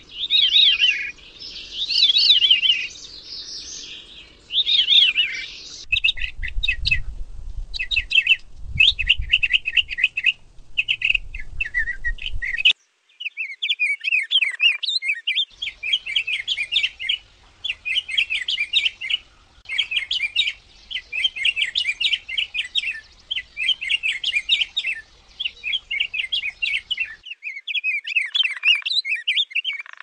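Recorded bird songs in sequence. First a veery sings descending, spiralling phrases. About six seconds in, after a cut, a different bird sings over a low rumble. From about thirteen seconds a rose-breasted grosbeak sings a run of short warbled phrases, repeated every second or so.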